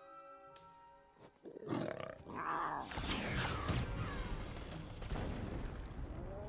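Film soundtrack: held orchestral notes, then about a second and a half in a sudden loud dragon roar. Growls and pitch-sliding cries follow over the score.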